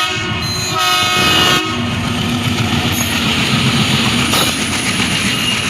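Twin WDM3D Alco diesel locomotives sounding their horn in two short blasts near the start, then pulling away under power with a steady engine drone and rolling wheel noise.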